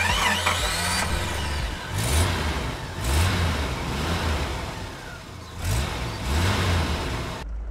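Recorded engine sound effect standing in for the bus, starting up and revving in several swells, cutting off suddenly near the end.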